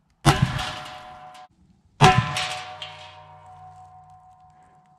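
Two rifle shots, each a sharp crack followed by a long metallic ring. The first ring cuts off abruptly about a second after the shot; the second dies away slowly over about three seconds.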